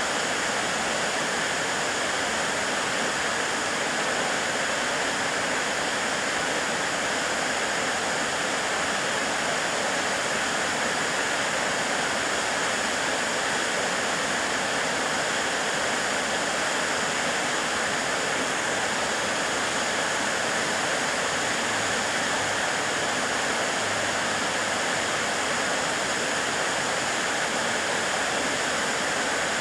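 Waterfall crashing steadily, a constant hiss of falling water with no change.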